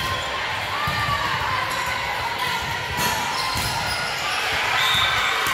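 Volleyball rally on a hardwood gym court: sneakers squeaking, a few sharp slaps of the ball, with echoing background hubbub from the hall.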